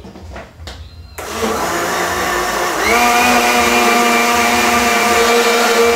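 Countertop blender switched on after a few knocks, its motor blending a thin pie batter of milk, oil, eggs and flour. It runs loud and steady, with a whine that rises and settles about three seconds in.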